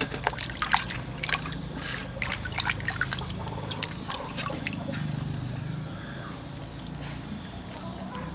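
Hands swishing peeled potatoes in a metal basin of water, with a run of splashes and drips in the first few seconds that then settles to quieter water movement.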